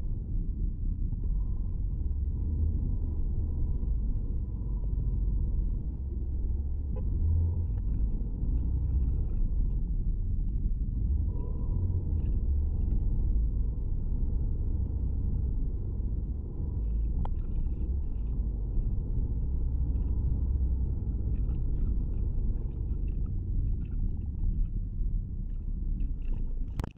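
Steady low road rumble inside the cabin of a moving Buick HRV: tyre and engine noise at cruising speed.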